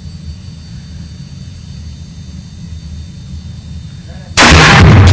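A low steady hum, then about four seconds in a single sudden, very loud rifle shot in an indoor shooting range, with the loudness staying high after it.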